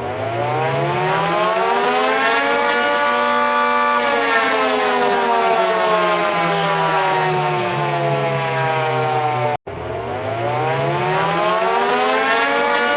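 Siren wailing as an emergency alert tone: its pitch climbs over about three seconds and then sinks slowly, over a lower tone that shifts in steps. It cuts off about nine and a half seconds in and climbs again.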